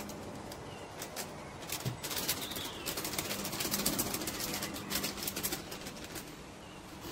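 Metal flour sifter clicking and scraping as cocoa powder is worked through its mesh: quick, irregular clicks that grow denser about two seconds in and thin out near the end. Birds chirp faintly in the background.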